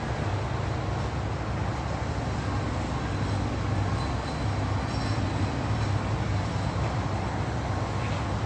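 Steady low mechanical rumble of a running engine, under a continuous even noise.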